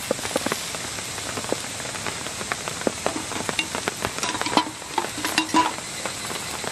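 Cabbage, pork and egg frying in a cast-iron skillet over a wood campfire: a steady sizzle dotted with many small crackles and pops.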